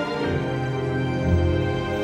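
Background music with sustained notes over a low pulsing bass.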